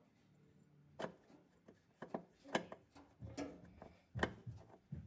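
About six irregular knocks and clatters with some scraping between them, from handling the panels, bolts and tools while taking apart a top-loading washing machine.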